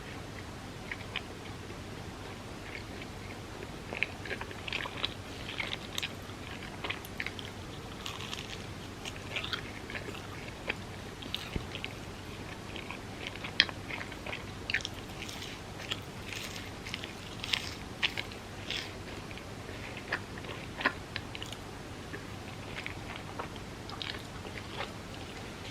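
Close-miked eating: a person chewing soft, sticky food, with irregular wet mouth clicks and smacks.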